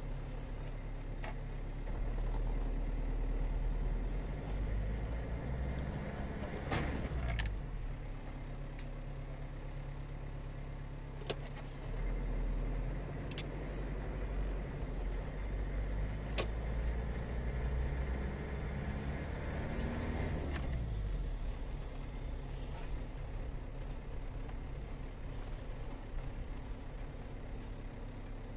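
Car engine and road noise heard from inside a moving car through a dashcam, a steady low rumble whose pitch shifts twice as the car changes speed. A few sharp clicks or rattles come through in the middle.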